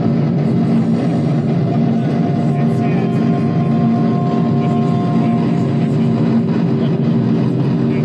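Dense, steady experimental noise drone: layered low humming tones under a constant wash of noise. Two higher held tones come in about two seconds in and drop out shortly before six seconds.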